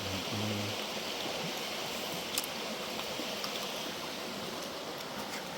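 River water running steadily, an even rushing wash, with a single sharp tick a little before the middle.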